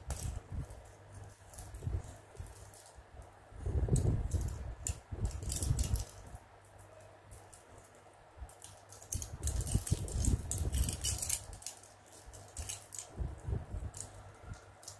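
Plastic beads of a Hello Kitty charm bracelet clicking and rattling against each other as it is handled, in two busier spells, with soft thumps of handling.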